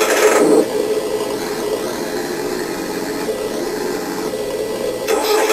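Simulated engine sound from a drift RC car's sound-module speaker, running steadily with a low hum. It swells louder briefly at the start and again near the end, as the throttle is worked.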